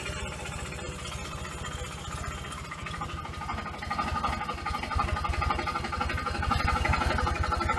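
Tractor engine running steadily, driving the sprayer pump that agitates the fertiliser mix in the tank. It gets louder from about four seconds in, with a higher whine over the engine pulses.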